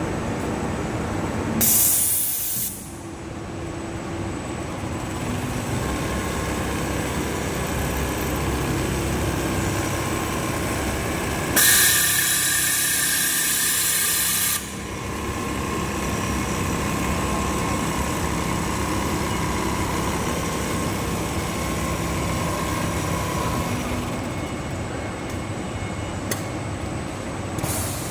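Automatic duvet-making machinery running with a steady mechanical noise. Two loud blasts of compressed-air hiss cut in, a short one near the start and a longer one of about three seconds around the middle.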